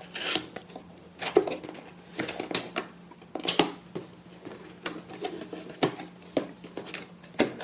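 Cardboard camcorder box being opened and its packaging handled: a run of scattered taps, clicks and rustles.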